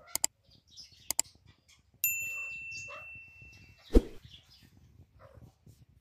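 A few light clicks, then a single clear bell-like ding about two seconds in that rings on and fades over about two seconds, followed by one sharp, loud thump about four seconds in, with soft rustling and tapping between.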